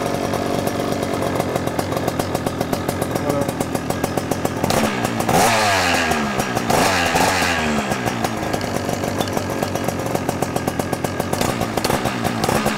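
ALS paramotor's 125cc two-stroke engine running at an idle set a little too high, revved up about five seconds in and again about a second and a half later, each time falling back to idle. It sounds like a dirt bike.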